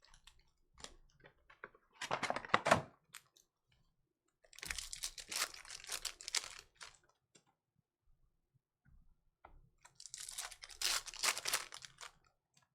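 Foil trading-card pack wrappers being torn open and crinkled, in three bursts of crackling and tearing.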